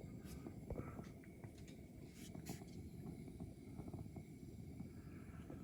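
Faint handling noise, scattered small clicks and rustles, as hands work over the dusty back of an RV propane fridge, over a low steady rumble.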